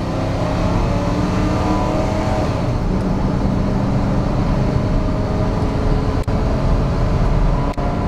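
2000 Ford F350 dually's engine at full throttle, heard from inside the cab, pulling the truck up to about 50 mph. About three seconds in, the automatic transmission upshifts and the engine note drops, then climbs again.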